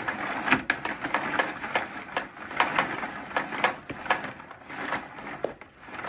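A Dyson Big Ball Allergy 2 canister vacuum's cord rewind reeling in its long power cord, with a steady run of rattles and clicks as the cord is drawn in.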